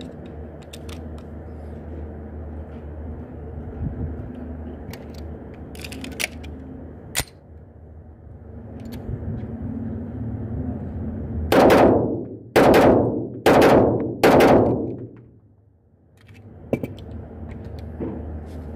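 A few light metallic clicks of a pistol and its ammunition being handled, then four pistol shots about a second apart, each ringing out with a short echo off the walls of a small indoor range.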